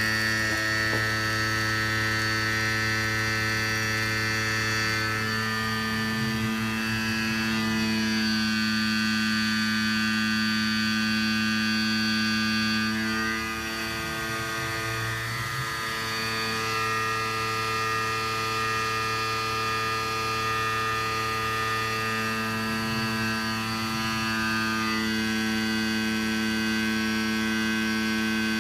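Tormach PCNC 770 CNC mill running on 6061 aluminum: a steady machine hum and whine made of several held tones, whose pitch pattern changes a few times as the cut goes on.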